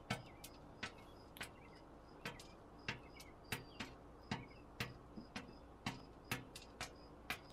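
Hen pecking dry cat food off a glass tabletop: sharp taps of the beak on the glass, irregular, about one or two a second.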